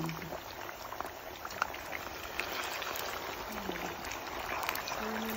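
Potato chips deep-frying in hot oil in a pan: a steady sizzle with many small pops and crackles.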